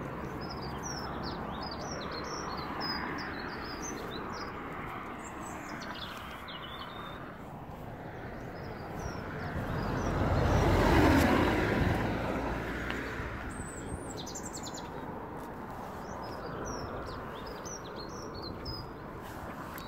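Small birds chirping in short, quick calls, with a vehicle passing about halfway through, swelling and then fading over a few seconds.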